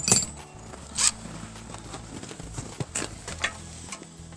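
A few short rasps and clicks from small hardware and tools being handled during assembly. The loudest are at the start and about a second in, with weaker ones around three seconds.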